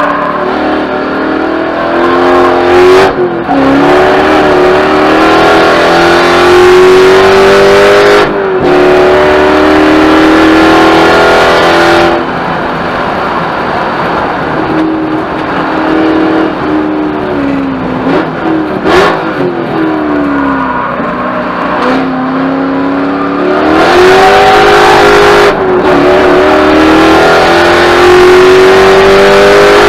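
A Spec Corvette's V8 heard from inside the car, driven hard on track. The engine note climbs in pitch through each gear and is broken every few seconds by upshifts, and once, in the middle, by a lift and a falling pitch through downshifts.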